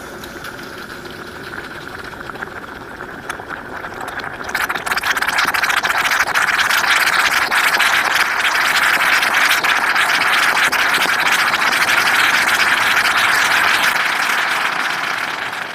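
The liquid in a wine glass is hissing and fizzing with a dense crackle after a ball is dropped in, while vapour billows out. It grows louder about four and a half seconds in and fades away near the end.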